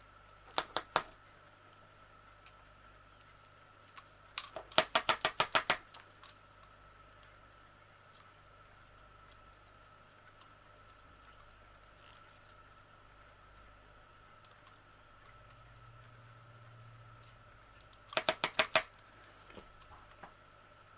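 Short runs of quick, sharp clicks from small crochet tools being handled and put away into their case: two clicks near the start, a rapid run of about eight around five seconds in, and another run of about five near the end, over a faint steady hum.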